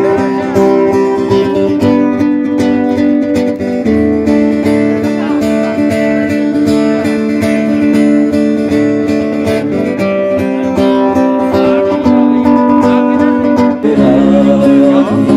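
Music led by a strummed acoustic guitar, with held chords that change every couple of seconds.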